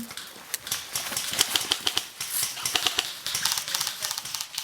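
Airsoft rifles firing: a run of sharp, irregular clicks, with quick clusters of shots about a third of the way in and again near the end.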